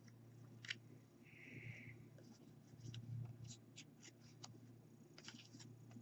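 Near silence with faint ticks and a brief rustle of baseball trading cards being handled and flipped through by hand, over a low steady hum.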